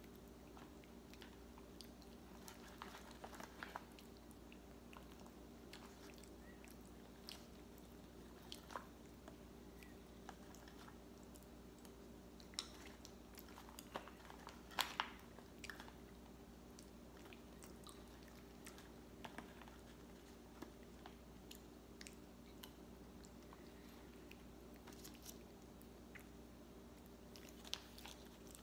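Quiet chewing of frozen durian eaten with a metal spoon from a plastic tray. Scattered small clicks and taps come from the spoon and the plastic, the loudest about halfway through. A steady low hum runs underneath.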